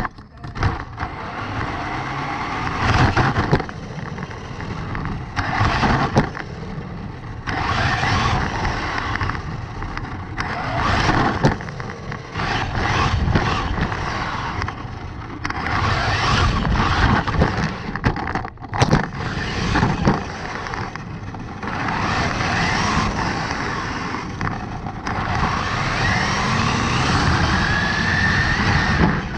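Onboard sound of a Traxxas 1/16 Mini E-Revo electric RC truck driving hard on asphalt, with its motor whine and tyre noise surging in bursts as the throttle goes on and off. There are a few sharp knocks, and a rising whine near the end.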